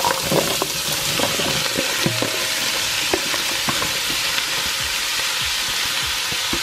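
Diced celery, carrot and pumpkin tipped into hot olive oil in a Dutch pot, sizzling steadily, with scattered light knocks of pieces landing in the pot.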